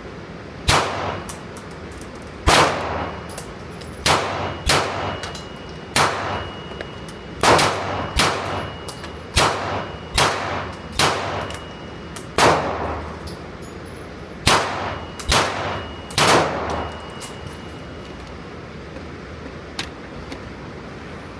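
Gunshots: a string of about fourteen shots at an uneven pace, each with a short echoing tail, stopping about sixteen seconds in.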